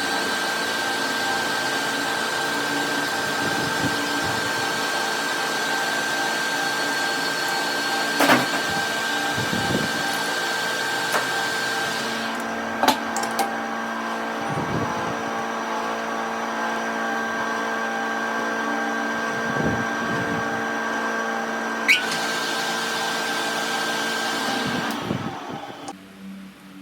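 An electric machine tool running steadily with a high, constant whine and hum, broken by a few sharp clicks; it winds down and stops near the end.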